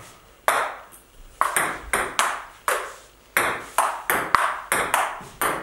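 Table tennis rally: the ball clicking off the rubber paddles and bouncing on a Stiga table top, about two sharp hits a second at an uneven pace.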